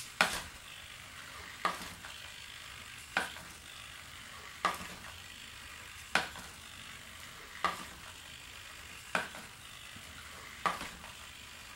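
Rapiro robot's servo-driven plastic feet stepping on a wooden floor as it turns left in place. There are eight even steps, one about every second and a half, each a sharp tap that fades quickly, over a faint steady hiss.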